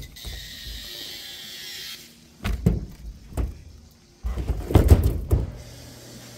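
Heavy split logs, rain-soaked, being slid and dropped onto a truck's load bed: a scraping slide for the first two seconds, then a few knocks, and a cluster of heavy wooden thuds about four to five seconds in, the loudest part.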